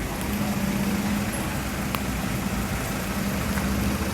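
Steady background noise with a low hum, with a faint click about two seconds in.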